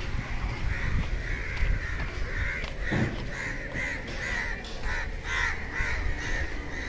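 Crows cawing over and over, several calls in quick succession, coming thickest in the second half.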